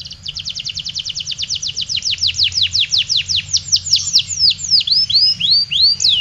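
Domestic canary singing a long, unbroken song: a fast run of high, downward-sweeping notes, about nine a second at first, that gradually slows, with rising notes mixed in near the end.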